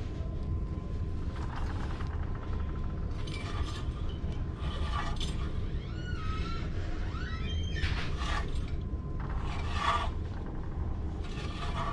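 Metal clinking and scraping of hub parts and hand tools, in about half a dozen short ringing bursts over a steady low rumble.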